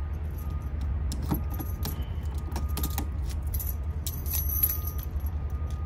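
A ring of try-out keys for a GM 10-cut laser lock jangling and clicking as they are switched and tried one by one in a car door lock, over a steady low rumble.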